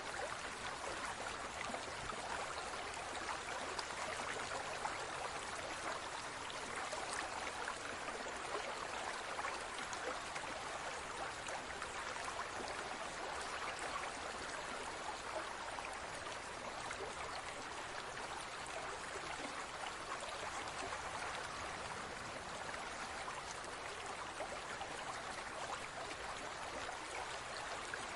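Water running steadily in a large aquarium: an even hiss of small splashes.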